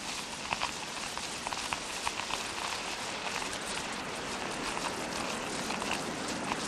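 Fake rain sound effect: a steady hiss of imitation rainfall with many small, scattered drop-like ticks.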